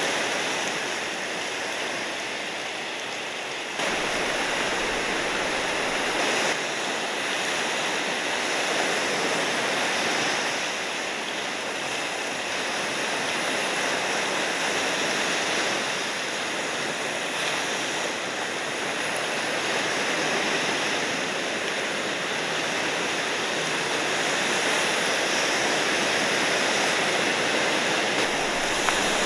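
Steady rush of ocean surf and moving water, with no distinct events.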